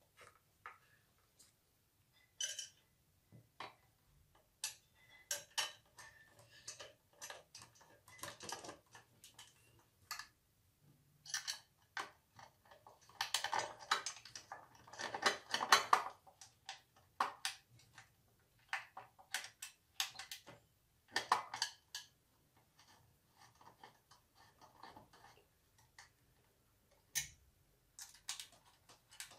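Irregular metal clicks, clinks and short scrapes of an Allen key and M4 bolts being worked by hand as a power supply unit is bolted to an aluminium extrusion frame upright. The scraping is thickest about 8 to 9 seconds in and again between about 13 and 16 seconds.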